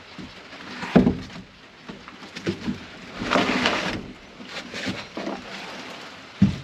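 A heavy bulldozer part being turned over by hand: a sharp knock about a second in, a scrape a few seconds in, and another knock near the end, with smaller clicks between.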